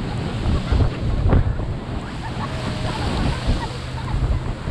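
Wind buffeting the action camera's microphone while water rushes and splashes past an inflatable banana boat being towed at speed.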